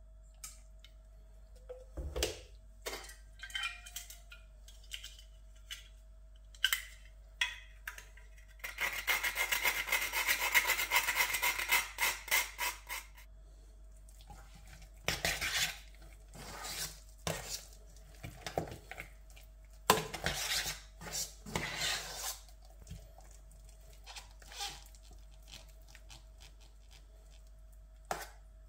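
Metal spoon stirring and scraping mashed potatoes in a Silit stainless steel pot, clinking against the pot's sides. A knock comes about two seconds in, then a fast run of stirring strokes lasts about four seconds a third of the way through, followed by slower, intermittent scrapes and clinks.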